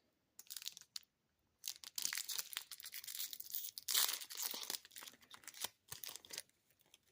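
A trading-card pack wrapper being torn open and crinkled. A short crackle comes first, then several seconds of dense tearing and crinkling, loudest about four seconds in.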